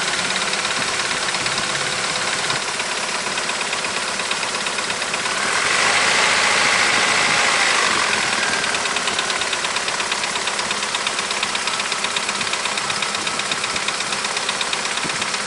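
Opel Omega A's 2-litre C20NE eight-valve inline four-cylinder engine idling from a cold start, with its hydraulic valve lifters clattering in a rapid, steady ticking: the lifter tap of a cold engine that the owner is trying to cure. The sound swells louder for a couple of seconds about six seconds in.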